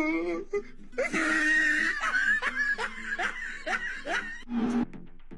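A person laughing hard in a run of repeated bursts, about two a second. Electronic music with a steady beat comes in near the end.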